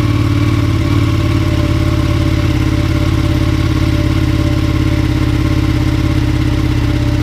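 Ducati 959 Panigale's Superquadro L-twin engine idling steadily.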